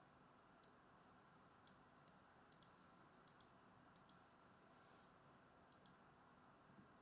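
Near silence with faint room tone, broken by a dozen or so soft, sharp clicks at irregular intervals.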